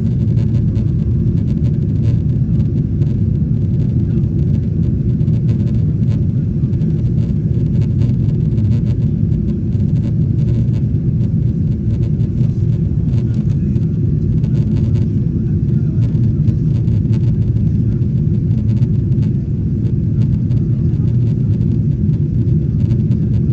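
Cabin noise of a Boeing 777-300ER in its climb after takeoff: a steady low roar from its GE90 engines and the airflow, heard from inside the cabin over the wing.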